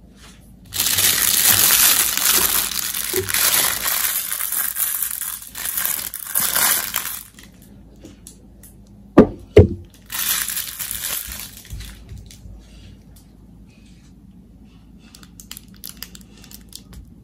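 Crinkling and rustling of plastic being handled, then two sharp knocks in quick succession about halfway through, followed by a shorter rustle and a few faint light clicks.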